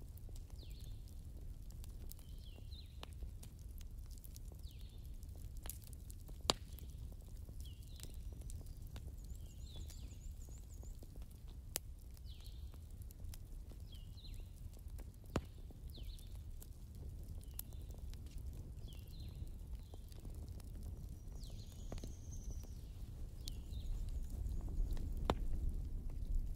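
Ballpoint pen scratching on paper in short strokes every second or two, with three sharp taps, over a low steady room hum.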